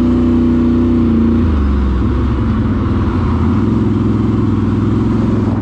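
ATV engine running under way on a trail, a steady engine note that drops to a lower pitch about a second and a half in and holds there.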